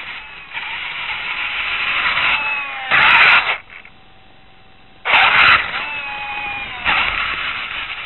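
Electric drive motors and gearboxes of a radio-controlled construction machine whining, their pitch gliding up and down as it works, heard through a small on-board camera microphone. Two loud, harsh noisy bursts of about half a second break in, about three seconds in and again about five seconds in.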